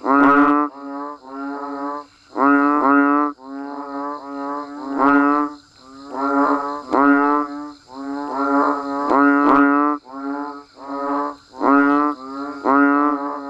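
A chorus of banded bullfrogs and other frogs calling: low, drawn-out, droning calls under a second long, overlapping and repeating about once a second. A faint, steady, high-pitched drone sits behind them.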